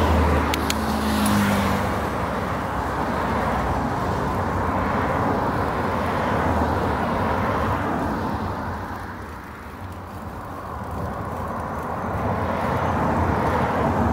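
Cars going by on a highway: an engine passes close at the start, then a steady rush of tyre and traffic noise that fades a little past the middle and rises again near the end.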